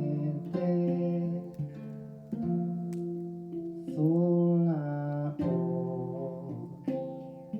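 Tonkori, the Ainu plucked zither, played in an improvised session: a run of plucked notes, one of them bending up and back down in pitch about four seconds in.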